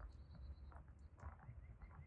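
Near silence: a faint low hum with scattered soft clicks and brief high chirps.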